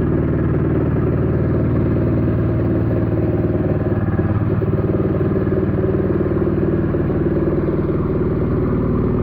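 Changchai diesel engine of a LAR L301 mini excavator running steadily, its low note shifting slightly about four seconds in.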